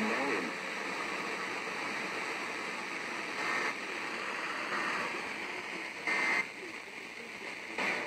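FM radio receiving a weak station: a steady hiss of static, with faint speech breaking through now and then.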